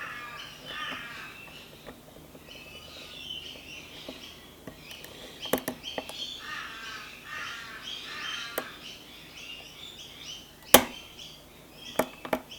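Sharp metallic clicks of lock picking tools working in a Lockwood 334 padlock, a handful in all, the loudest about eleven seconds in, with birds calling repeatedly throughout.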